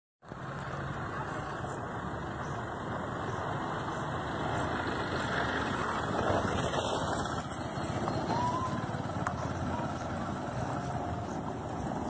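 Steady outdoor background noise, a continuous low rumble like distant traffic, with a faint short whistle-like note about eight and a half seconds in.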